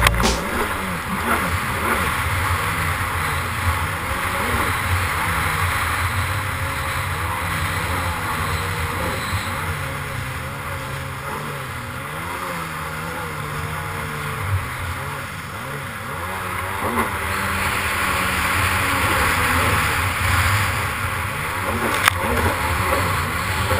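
Yamaha SuperJet stand-up jet ski's two-stroke engine running on the water, its pitch wavering up and down with the throttle, under a steady rush of spray and wind on a helmet camera. The water noise grows louder in the last few seconds, with one sharp knock near the end.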